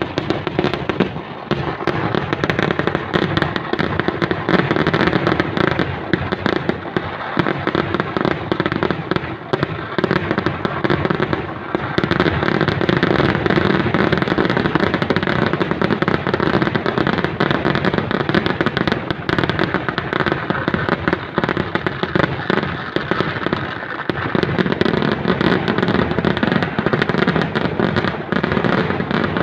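Kerala temple-festival fireworks (vedikettu) in a dense, unbroken barrage. The reports come far too fast to count and merge into a continuous loud crackle and boom, with only brief slight lulls.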